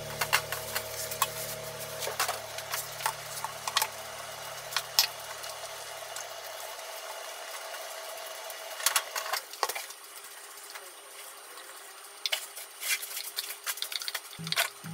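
Wooden chopsticks clicking and scraping against a small frying pan as soft egg is stirred and spaghetti is laid on top, with light cooking noise from the pan. A steady low hum stops about halfway through.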